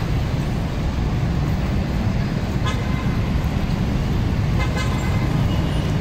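City street traffic noise: a steady low rumble of passing cars, with two short, higher-pitched sounds near the middle, which may be horn toots.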